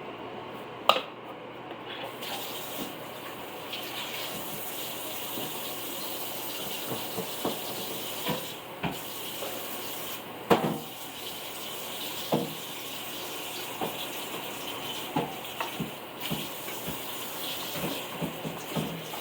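Water running from a kitchen tap, starting about two seconds in and shutting off near the end, with scattered light knocks and clinks of things being handled.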